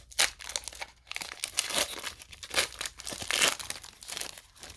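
Pokémon TCG booster pack's foil wrapper being torn open and crinkled by hand, a run of irregular crackles and rips, loudest a little past the middle.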